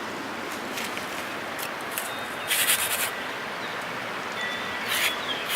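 Steady rush of strong wind through trees and shrubs, with a crackling rustle about two and a half seconds in and a shorter one near the end.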